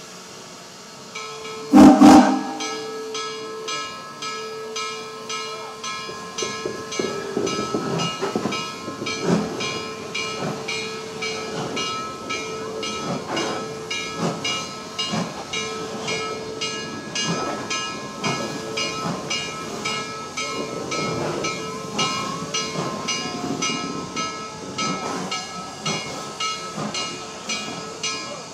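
Western Maryland Scenic No. 734, a 2-8-0 steam locomotive, hissing steam with an even, rapid pulsing and scattered soft thumps while it is turned on a turntable. One short, loud blast comes about two seconds in.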